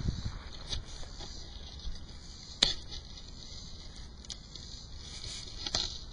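Steady, high-pitched chorus of insects in summer trees (cicadas and crickets), with a few sharp clicks, the loudest about two and a half seconds in.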